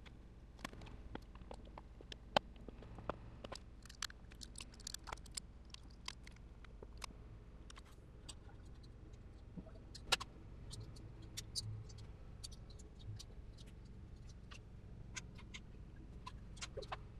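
Scattered small metallic clicks and clinks of parts and tools being handled while working on an air-cooled VW engine on a stand, the sharpest about two seconds in and about ten seconds in, over a faint low hum.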